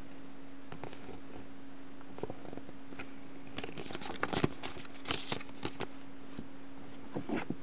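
Crinkling and rustling of a blind-bag wrapper and a paper checklist leaflet being handled. The crackles come in scattered clicks, then a dense stretch about three and a half seconds in and another near the end, over a steady low hum.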